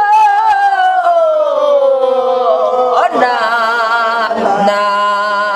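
A woman singing gueum, the Korean vocal imitation of instrumental melody on vocables. She holds one long note that sinks slowly and sadly in pitch, then leaps up about three seconds in into a wavering phrase with heavy vibrato.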